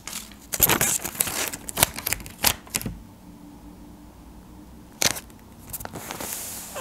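Paper cutout handled and pressed flat onto a sketchbook page by hand: quick rustles and sharp clicks and taps over the first few seconds, a quiet pause, one click about five seconds in, then soft rubbing of fingers over the paper near the end.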